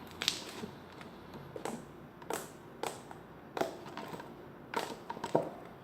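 Purple fluffy slime being worked by hand, air pockets bursting in sharp bubble pops: about eight short, irregularly spaced snaps.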